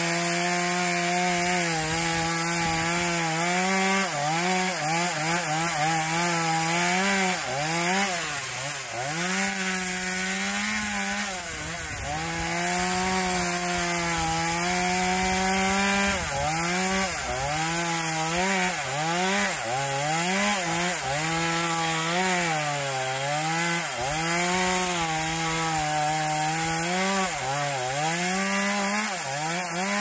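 Chainsaw cutting through a tree limb, its engine note dropping and picking back up over and over as the chain bites into the wood.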